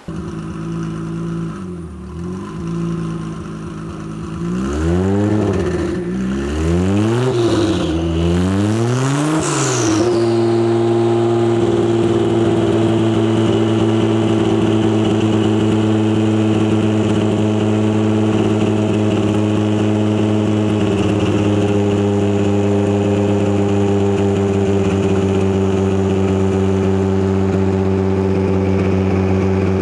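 Kia Stinger 3.3 twin-turbo V6 on a chassis dyno, blipped up and down about four times, then held at a steady engine speed, loud and even, for the last twenty seconds.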